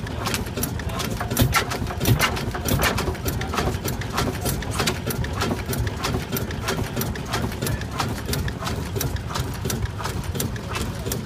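1905 Crossley Bros. Type S single-cylinder horizontal stationary engine running steadily, with a rapid mechanical clicking and clacking, several clicks a second, over a low running rumble.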